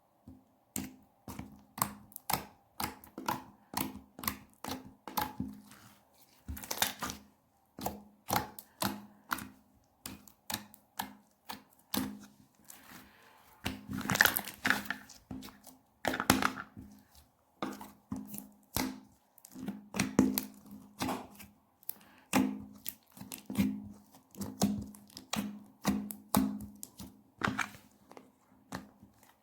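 Clear, slightly jelly-like slime being squished and pressed by hand, giving a steady run of sticky pops and crackles, about one or two a second, with a few longer crackling stretches.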